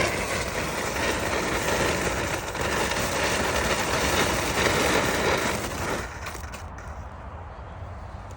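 Firework fountain burning with a steady, loud hiss of spraying sparks, dying away about six seconds in.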